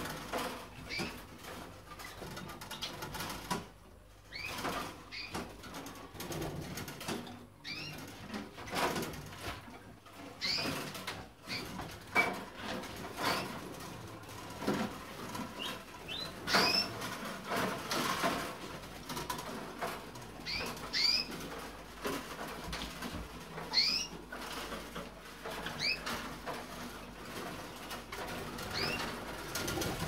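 Caged canaries giving short, upward-sweeping call notes every second or two, amid wing flutters and rustling in the cages.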